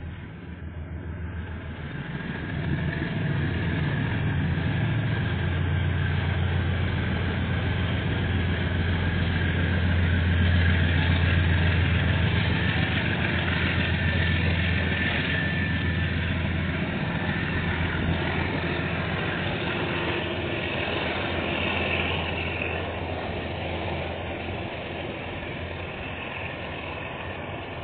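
KiwiRail diesel freight locomotive passing, its low engine drone growing louder over the first ten seconds or so and dying away after about seventeen seconds. Then container-laden wagons roll past with a steady rumble that slowly fades.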